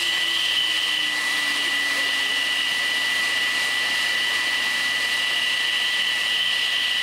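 Electric air blower forcing cold air into the intake of a home-built jet engine made from a turbocharger, to cool the red-hot engine: a steady blowing noise with a high, even motor whine. A fainter, lower tone slowly drops in pitch over the first few seconds.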